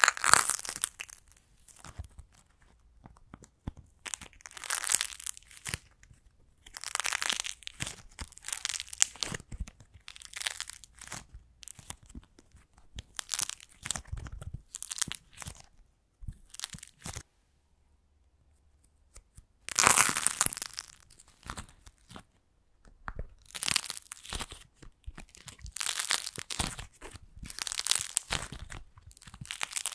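A clay macaron being broken open, squeezed and pulled apart by hand, its crust cracking and tearing in repeated crackly bursts. A sharp crack opens the sound, there is a pause of about two seconds two-thirds of the way in, then another loud crack.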